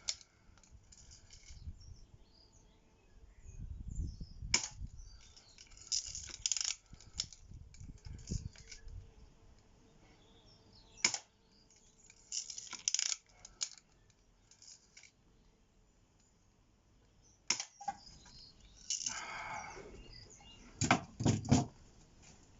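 Air gun shots: a sharp crack roughly every six or seven seconds, with rattling handling noises between shots and a quick run of knocks near the end.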